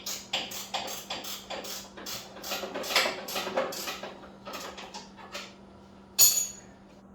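Ratcheting 17 mm wrench clicking in quick, even strokes, about three a second, as it backs off the top nut of a motorcycle rear shock. About six seconds in comes one louder, ringing metal clink.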